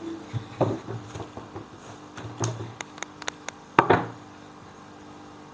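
Wooden display rack of jati Belanda (pine crate wood) being handled and shifted about: scattered light wooden knocks, a quick run of sharp clicks around three seconds in, and a louder knock at about four seconds.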